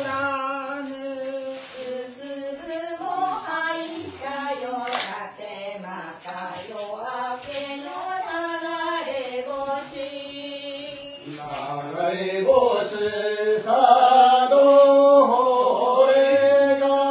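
Voices chanting together in long held notes that slide slowly up and down in pitch, growing louder in the last few seconds.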